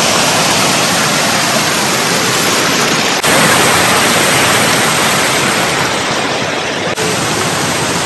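Water rushing and splashing over rock ledges of a cascading waterfall, a steady loud hiss of falling water. Its level and tone shift abruptly about three seconds in and again near the end.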